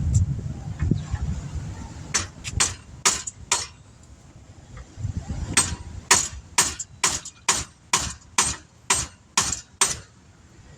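Hammer striking metal with sharp, ringing blows: a quick run of about five, a short pause, then about ten steady blows at roughly two a second. The blows are pounding on a crusty, seized brake part.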